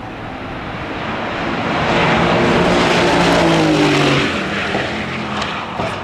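Mercedes-AMG GT4 race car's 4.0-litre twin-turbo V8 passing at speed. The engine note grows louder and falls in pitch as it goes by, then drops away sharply about four seconds in.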